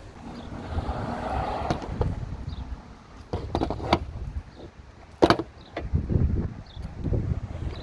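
A few clicks and then one sharp knock, from hand work on a car's battery terminal, over a low rumble.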